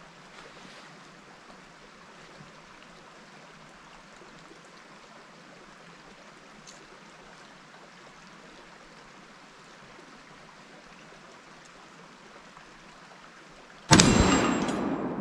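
A faint, even hiss, then near the end a single loud shot from a Remington 700 bolt-action rifle, its echo dying away.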